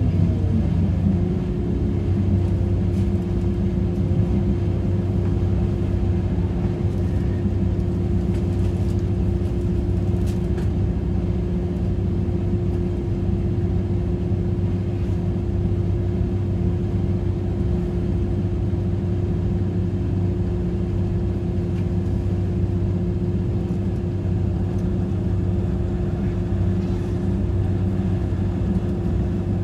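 Regional express train running at steady speed, heard from inside the carriage: a constant low rumble of wheels and running gear with a steady hum.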